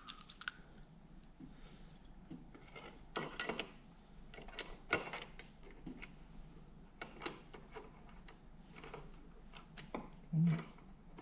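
Steel gears and shafts of a Toyota W52 five-speed manual transmission clinking and knocking as they are handled and slid together on a stone bench top, in scattered sharp metallic clicks. A brief low hum near the end.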